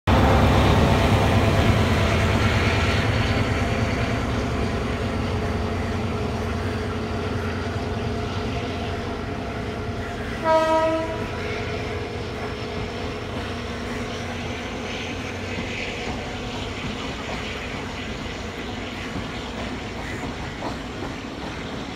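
Class S11 diesel multiple unit running away along the track, loud at first and fading steadily as it moves off. There is one short horn blast about halfway through.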